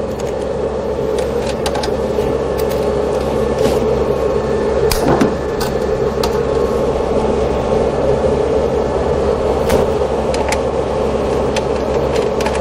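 Steady hum and whir of running electrical equipment, with scattered light clicks and knocks as battery cables are handled and fastened to an inverter's terminals.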